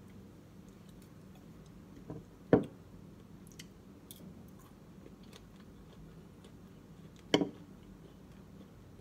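Two sharp knocks about five seconds apart, the second a metal fork striking a ceramic bowl, with faint small taps and clicks between.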